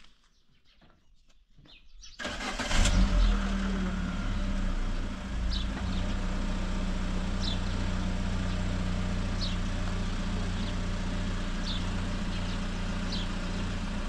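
A car engine running steadily with a low hum, coming in suddenly about two seconds in after near silence. Short high chirps recur every couple of seconds over it.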